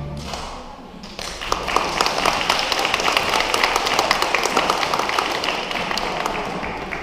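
Audience applauding, beginning about a second in as a sung number ends and tapering off near the end.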